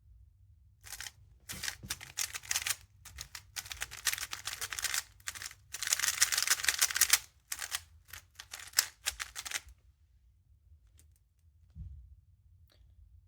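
Moyu Weilong Ferrocore speed cube being turned quickly in bursts of rapid plastic clicking and rattling, its freshly applied mix of lubes not yet fully worked in. The turning stops near the end, leaving a few faint clicks and a soft bump.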